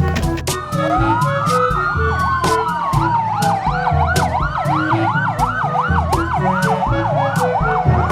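Electronic siren sounds over music with a steady beat: a slow wail rises and falls, and a fast yelping siren joins about two seconds in.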